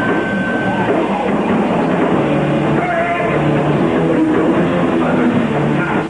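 Rock band playing live and loud: electric guitar, bass and drum kit together, recorded on a lo-fi live tape.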